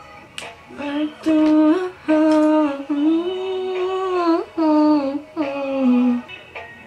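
A woman humming a slow tune with her lips closed: about six long held notes in a row, loud.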